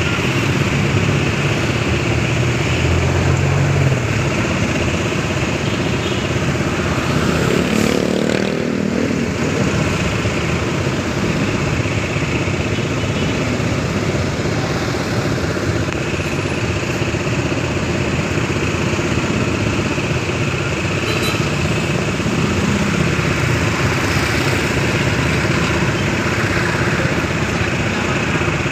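Motorcycle and street-traffic engine noise in slow, congested traffic: engines idling and running close by. A short rising tone comes about eight seconds in.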